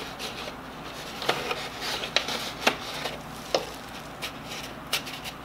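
Hands pushing a fine 9-micron sanding belt onto an expandable rubber drum: irregular rubbing and scraping with several sharp taps and clicks.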